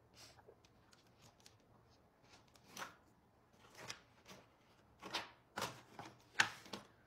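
Rummaging: an irregular string of rustles and light clacks as small objects are handled and moved about, sparse at first and louder and closer together in the second half.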